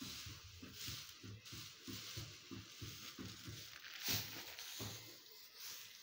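Dry bean husks and stalks rustling and crackling as they are swept together by hand into a pile, in swells about once a second, with a louder rustle about four seconds in.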